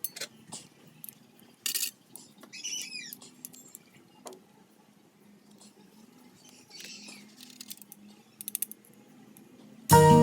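Scattered light clicks and clinks of small metal parts and tools being handled, with a quick run of ticks near the end. Guitar music comes in loudly just before the end.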